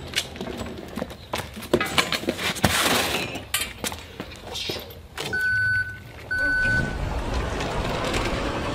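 Knocks and rattles of a metal hand truck being handled on concrete, then two short high beeps about a second apart, followed by a steady rushing noise as the hand truck is ridden like a vehicle.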